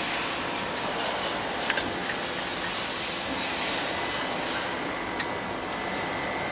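Steady hiss of background noise with a faint high steady tone through the middle, and a few light clicks as hands touch the metal terminal box and terminal links of a vacuum pump motor.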